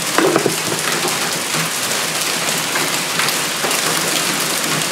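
Heavy rain pouring down in a thunderstorm: a steady loud hiss with scattered sharp ticks of drops striking.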